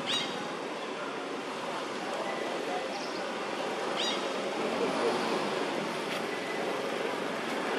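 Outdoor park ambience: a steady wash of distant motorbike traffic and people's voices, with two short high chirps, one at the start and one about four seconds in.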